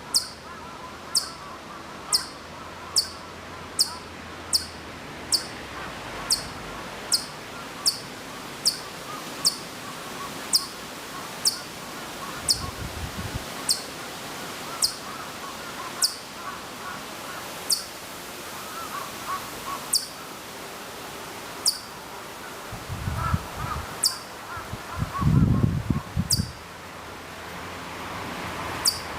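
Siberian (Ezo) chipmunk giving a long series of sharp, very high chip calls, each falling quickly in pitch, a little more than one a second at first and spacing out to one every second or two later on. Faint bird chatter runs underneath, and a few low rumbles come in near the end, the loudest about 25 seconds in.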